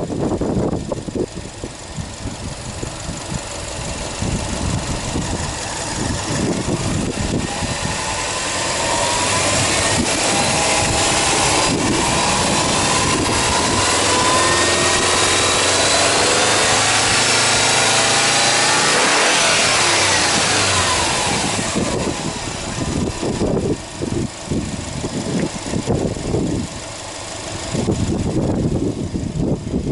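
Subaru Impreza WRX STI's turbocharged EJ25 flat-four being revved while parked. The revs build gradually over the first several seconds and are held high for about ten seconds. They fall back about two-thirds of the way through, then the engine runs lower and unevenly.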